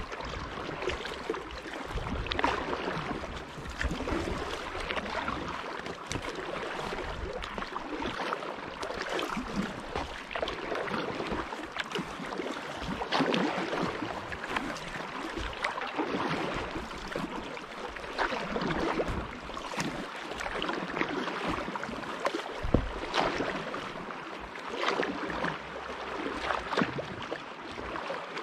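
Kayak paddle strokes dipping and pulling through lake water, with water splashing and swishing along the hull in uneven surges every couple of seconds. A low wind rumble sits on the microphone.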